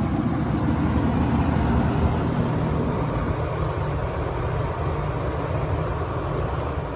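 Lakewood C-122X 12-inch box fan with its small McMillan motor and three plastic blades, running on high speed: a steady hum and rush of air. The sound thins and grows somewhat quieter from about three seconds in.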